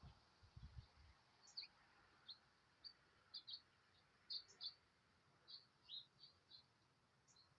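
Faint, short, high chirps from small songbirds, coming irregularly a few times a second, with a few low thuds in the first second.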